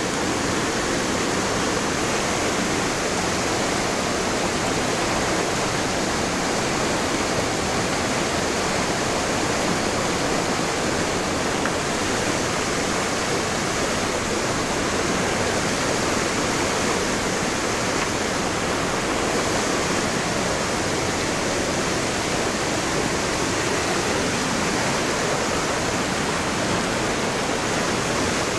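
Creek water running over sandstone ledges and small cascades: a steady, even rush.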